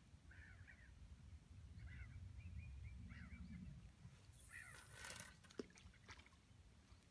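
Faint outdoor quiet with a low rumble and a few small bird chirps. About four and a half seconds in, a brief swishing hiss and then one sharp click as a fishing rod is cast out.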